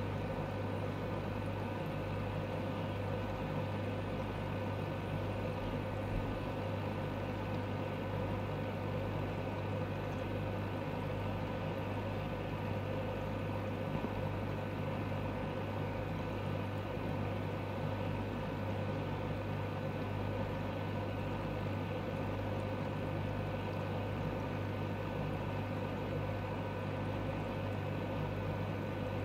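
Steady low hum of a small machine, unchanging in pitch and level.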